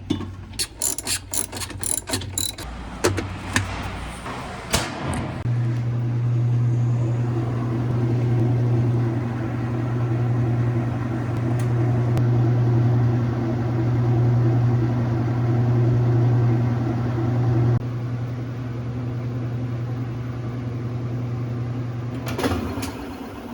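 Whirlpool top-load washer running on test with its replacement transmission: a string of clicks and knocks, then from about five seconds in the drive motor hums steadily. The hum drops in level about three-quarters of the way through and cuts off near the end with a short thump.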